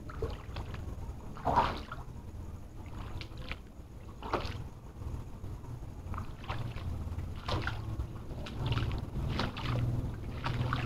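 Footsteps wading through shallow floodwater: irregular splashes and sloshes every second or so, over a low rumble.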